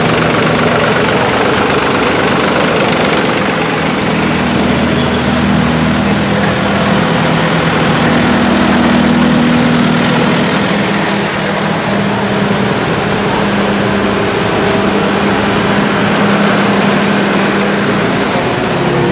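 Diesel engines of several modern farm tractors driving past one after another, a John Deere passing right beside: a steady, loud engine drone.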